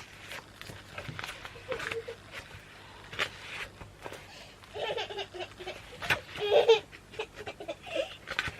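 A toddler fake crying in a few short whiny wails, mostly in the second half, with scattered light clicks.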